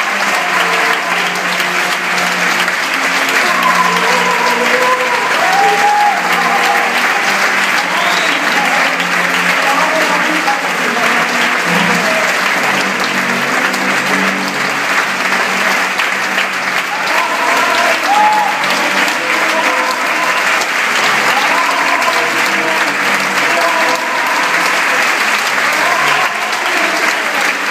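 Theatre audience applauding steadily, with scattered cheers and shouts rising over the clapping.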